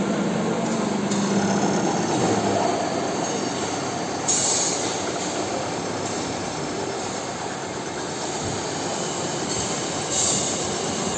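Metal lathe turning a bolt: steady machining noise with the cutting tool scraping and squealing on the metal, with brief sharper bursts about four seconds in and again near the end.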